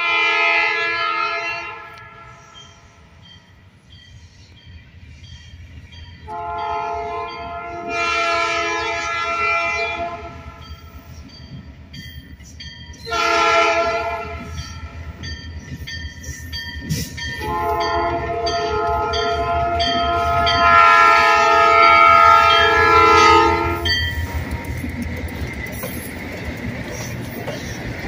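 Diesel locomotive multi-tone air horn sounding the grade-crossing signal: two long blasts, a short one, then a long one. Under it the freight locomotives' diesel engines rumble, growing louder as they near. In the last few seconds the locomotives pass close by with engine and wheel noise.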